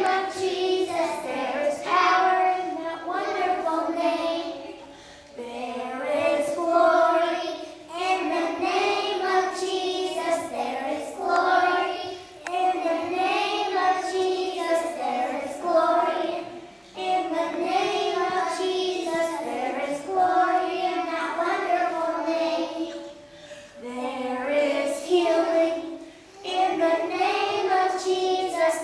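A group of preschool children singing a song together, in sung phrases with short breaks between them.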